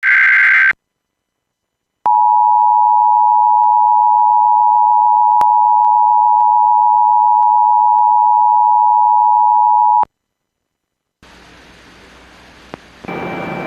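Emergency Alert System broadcast: a short burst of screechy digital SAME header tones ends the first second. After a pause comes the EAS two-tone attention signal (853 and 960 Hz together), held steady for about eight seconds before it cuts off sharply. Faint radio hiss follows, and an automated voice starts near the end.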